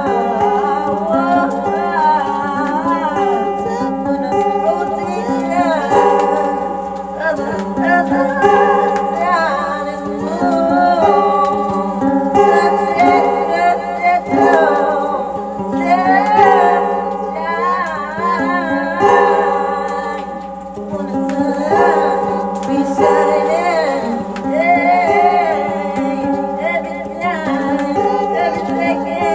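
Music: a voice sings a wandering, wordless melody over a steady held drone.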